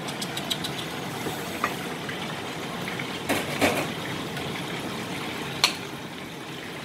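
Metal ladle scooping soup from a stainless steel pot into a ceramic bowl: light clinks and scrapes of the ladle, a louder clatter with pouring liquid about three and a half seconds in, and a sharp clink near the end, over a steady hiss.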